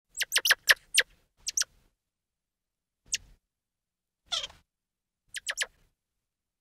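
Monkey squeaks: short, sharp, high-pitched calls that each drop quickly in pitch, coming in quick clusters of one to six with silent gaps between. A single slightly longer, falling call comes near the middle.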